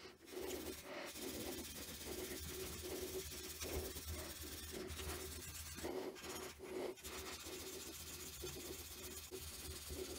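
Super fine steel wool rubbed back and forth over a bronze-filled PLA (Bronzefill) 3D print, a steady scratchy rubbing in quick repeated strokes with a brief pause about six seconds in. This is the final steel-wool polishing stage that brings up the metal's shine.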